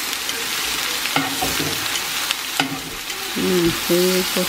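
Sliced bell peppers sizzling in oil in a nonstick frying pan, with a few sharp clicks as metal tongs turn them. A voice is heard briefly near the end.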